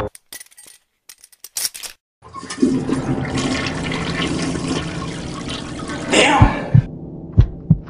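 A toilet flushing: after a near-silent stretch with a few clicks, a steady rush of water starts about two seconds in and runs until near the end. Near the end, pairs of low thumps like a heartbeat begin.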